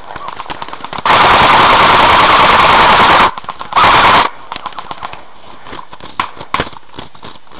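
Airsoft gun firing full-auto close to the microphone: a burst of about two seconds, a short pause, then a half-second burst, followed a couple of seconds later by a few scattered single pops.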